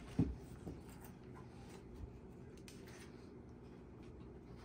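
Pages of a paperback picture book being turned and handled: a soft thump about a quarter second in, then a few faint paper rustles and ticks over a low, steady room hum.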